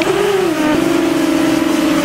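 Brushless motors and propellers of a 4S FPV mini quad whining in flight. The pitch wavers with the throttle in the first half second, then holds steady.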